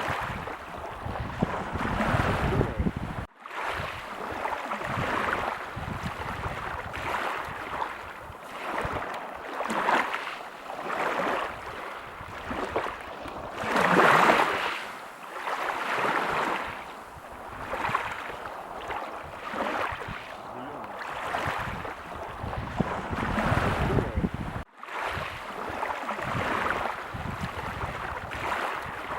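Ocean waves breaking and washing onto a beach, the surf swelling and fading every couple of seconds, with the biggest wave about halfway through. The sound drops out for an instant twice.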